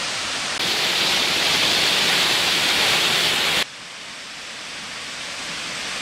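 Tall, narrow mountain waterfall: a steady rush of water falling onto rock and into its plunge pool. It turns suddenly louder about half a second in and drops back abruptly a little past the middle.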